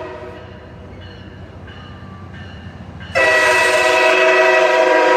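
MARC 24's strangely tuned Nathan K5H five-chime air horn, over the low rumble of the passing train. About three seconds in, the horn starts one long, loud chord that holds to the end.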